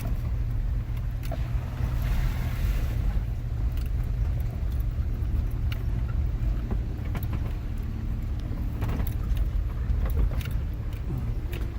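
Off-road vehicle crawling slowly down a rocky mountain trail: a steady low engine and drivetrain rumble, with scattered clicks and knocks of the tyres over rock and gravel.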